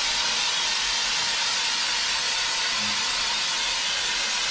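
Aerosol can of Homax orange-peel wall texture spraying onto a drywall patch in one continuous, steady hiss.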